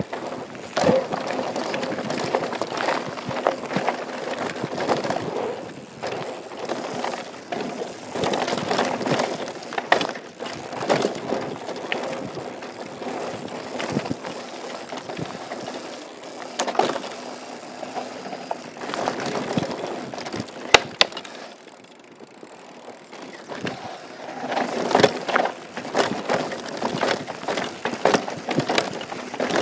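Downhill mountain bike riding a dirt trail: tyres crunching over dirt and rocks, with the bike's chain and frame clattering in sharp knocks over bumps and roots. The noise swells and eases as the terrain changes, going quieter for a few seconds about three quarters of the way through.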